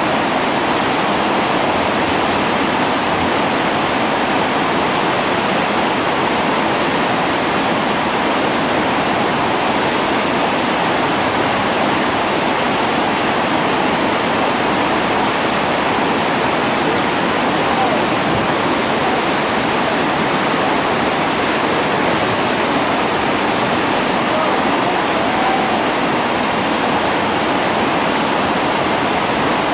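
Steady, unbroken rush of whitewater rapids pouring over and between river boulders.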